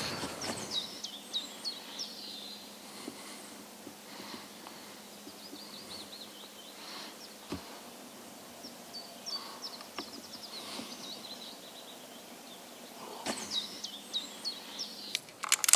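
Small birds chirping in several runs of short, high, falling notes over a quiet forest background, with a few sharp clicks near the end.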